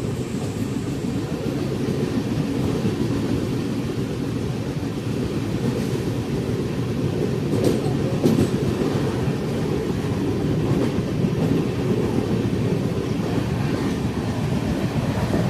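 Passenger train running along the track: a steady low noise of the wheels on the rails, with a few faint clicks about halfway through.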